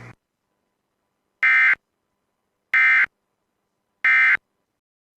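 Emergency Alert System end-of-message data tones: three short, identical buzzing bursts of digital data about a second and a quarter apart, signalling the end of the alert.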